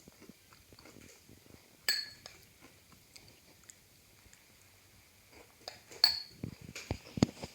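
Hard objects clinking, with a brief ring like glass or china: one sharp clink about two seconds in, another about six seconds in, then a run of lighter taps and dull knocks near the end.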